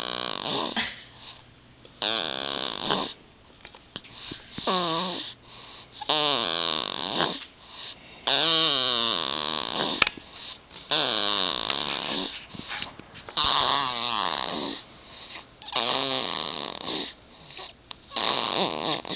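Sleeping baby snoring, a rattly snore about every two seconds with each breath, each lasting about a second.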